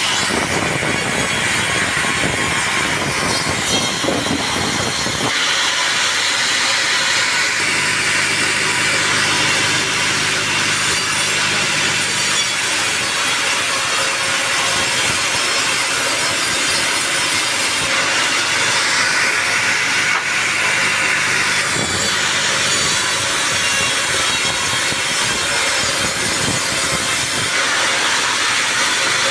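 Sawmill saw cutting through a teak log: a continuous loud, hissing sawing noise whose tone shifts a few times along the cut.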